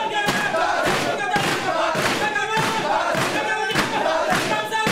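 A group of men chanting and shouting together while pounding on a table with their hands, about two thumps a second.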